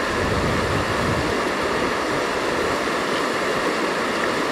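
Fast-flowing river rushing steadily, a constant wash of water noise.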